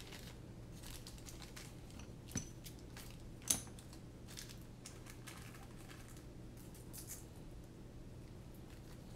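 Faint, scattered clicks and plastic-bag rustling as small metal standoffs and screws are taken out of their bag and set down on a silicone work mat. The sharpest click comes about three and a half seconds in, over a low steady hum.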